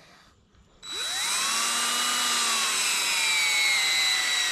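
A DeWalt 20V cordless drill driving a 2-inch screw-in barbed-wire fastener into a tree trunk, starting about a second in. The motor's whine rises quickly, then slowly drops in pitch as it comes under load.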